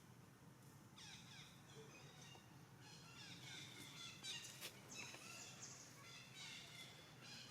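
Faint, high-pitched animal calls, several in a row, over a quiet outdoor background.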